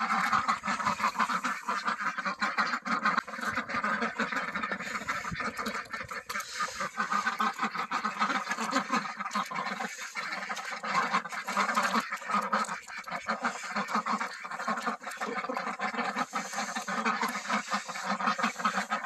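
A flock of domestic ducks, mostly Indian Runners, quacking continuously while feeding, their bills dabbling in pans of wet feed with a steady stream of rapid clicks and slurps.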